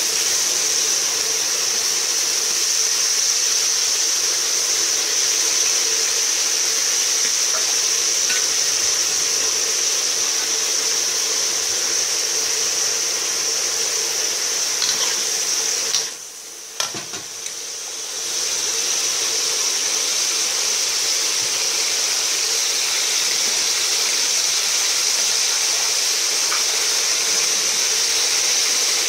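Sliced meat sizzling in an aluminium wok in its own juices, a steady loud hiss, with a few light scrapes and taps of a metal spatula. The sizzle drops away for a couple of seconds about sixteen seconds in, then returns.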